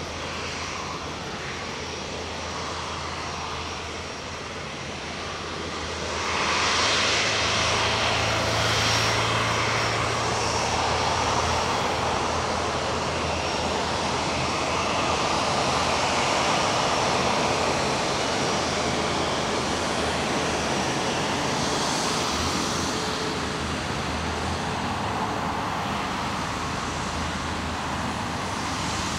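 Airbus A350-900's Rolls-Royce Trent XWB turbofan engines running at taxi power, a steady jet hum that swells about six seconds in as the airliner turns toward the listener and eases slightly near the end.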